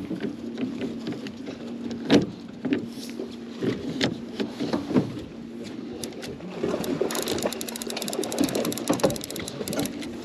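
Boat's outboard motor idling with a steady low hum, with occasional knocks and a fast run of clicks starting about seven seconds in and lasting a couple of seconds.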